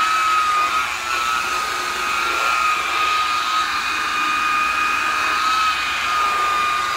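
DeWalt variable-speed polisher running steadily with a foam pad buffing black polish into a painted motorcycle tank: a high motor whine that wavers slightly in pitch as the pad is pressed and moved.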